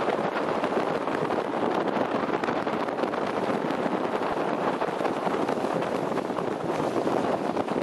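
A car driving along a dirt road: a steady rush of tyre and road noise mixed with wind on the microphone.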